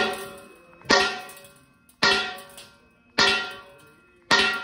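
Hammer blows on steel, five strikes about a second apart, each ringing as it dies away: the worn, cut-loose bushing on a CAT D6T push arm being knocked out.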